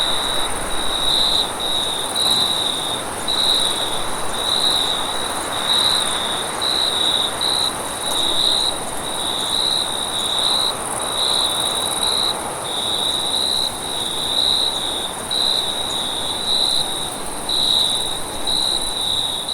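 Crickets chirping in a night-time forest chorus, a high trilled chirp repeating about once a second over a steady high-pitched insect drone and a soft background hiss.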